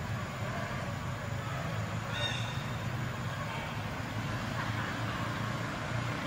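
Steady low background rumble with no change in level, and a brief high chirp about two seconds in.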